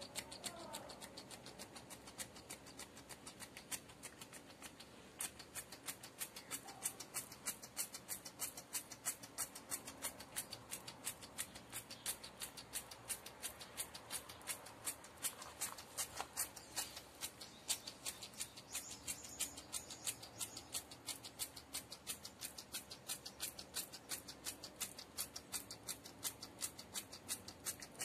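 Hand trigger spray bottle pumped over and over, each pull giving a short, sharp spritz. The pulls come irregularly at first, then steadily about three times a second from about five seconds in.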